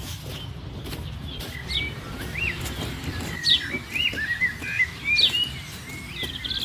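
Birds chirping: a run of short whistled calls that slide up and down, starting about two seconds in, over a low steady rumble.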